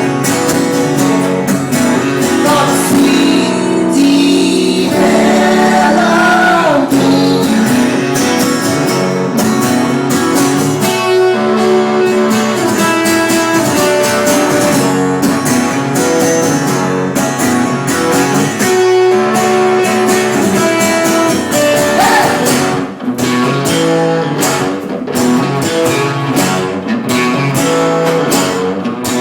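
Live blues song played on guitars, with steady strumming and picked notes.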